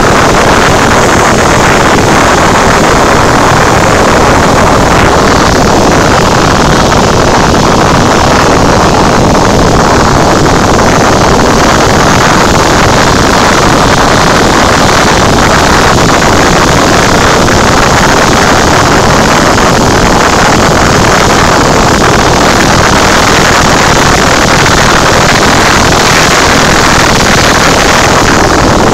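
Cabin noise of a Cessna 172 in flight: the piston engine and propeller running steadily under rushing airflow, loud and unchanging.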